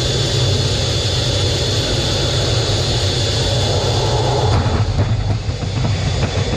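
Fighter jet's engines heard from inside the cockpit while landing on an aircraft carrier: a loud, steady low rumble with a thin high whine over it. About two-thirds of the way through, the noise turns uneven as the jet reaches the deck.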